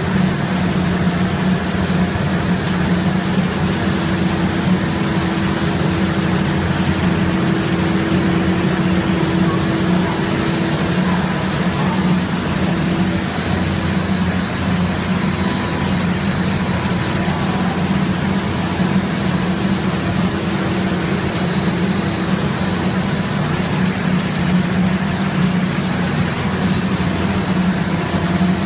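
DP-WR-85 plastic film recycling machine, with its shredder and pelletizer, running: a loud, steady machine drone with a strong low hum.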